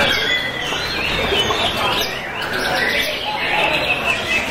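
Many caged white-rumped shamas (murai batu) singing at once: a dense, overlapping chorus of whistles and chirps.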